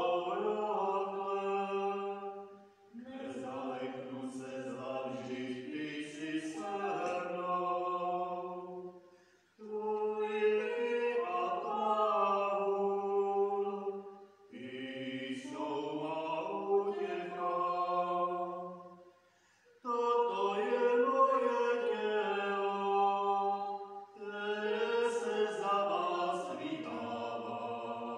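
Liturgical chant, sung in phrases of four to five seconds separated by short pauses for breath.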